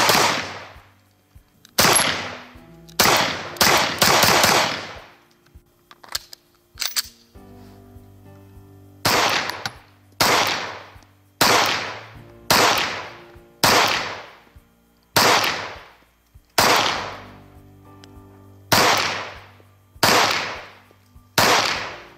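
Beretta APX 9mm Luger pistol firing: a few quick shots, a pause of about four seconds with a few faint clicks, then a steady string of single shots about one a second, each with a long echoing tail.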